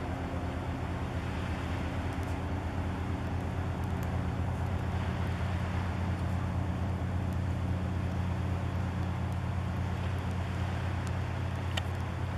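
A steady, low engine drone, held at one pitch throughout, over a faint hiss.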